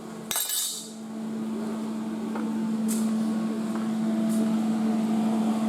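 A steady low-pitched mechanical hum, like a motor or fan running, starting just after a brief hissy noise and growing slightly louder.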